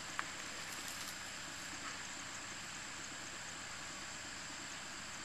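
Steady hiss of outdoor background noise with a faint high steady tone, and one short sharp click just after the start.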